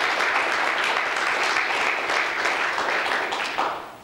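Audience applauding, the clapping dying away quickly near the end.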